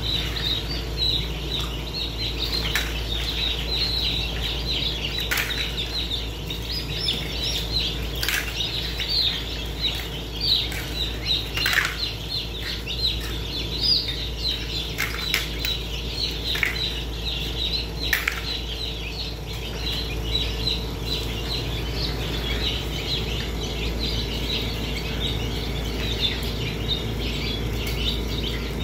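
A crowd of newly hatched chicks peeping continuously in high, rapid chirps, with occasional sharp clicks and rustles as a hand moves among them and the broken eggshells in the wire tray, over a steady low hum.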